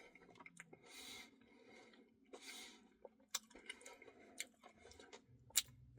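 Faint close-up eating sounds of a person eating a cookie dough ice cream Blizzard: soft chewing with scattered small mouth clicks, and two short hissy sounds about one and two and a half seconds in.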